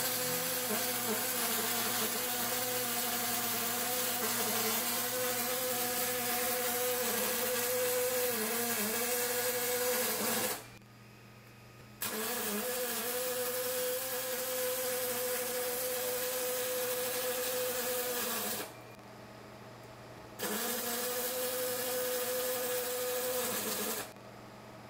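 Robotic MIG welding arc (Lincoln R350 on Rapid Arc pulsed transfer, .035 ER70S6 wire) running with a steady pitched buzz over hiss and crackle. The arc cuts out abruptly for a second or so about ten seconds in, again about eight seconds later, and once more near the end, at the robot program's stops.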